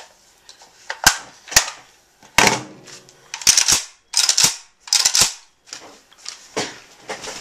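An AKM rifle being handled: about a dozen sharp metallic clacks, several in quick pairs, as its magazine and action are worked in a reload demonstration.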